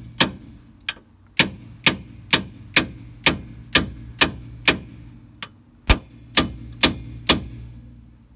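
Lump hammer striking a steel 1-inch socket used as a drift, knocking out the old kingpin bearing inner race from the swivel hub. The sharp metal-on-metal taps come at about two a second, with a brief pause around the middle and one heavier blow just after it.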